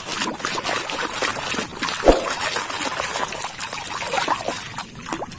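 Water trickling and splashing while a muddy toy is washed by hand, with small knocks and clicks of the toy being handled and one louder knock about two seconds in.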